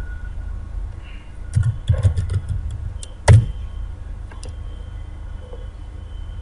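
Computer keyboard keys clicking as a web address is typed, with a short run of keystrokes about two seconds in and one louder key strike just after three seconds, over a steady low hum.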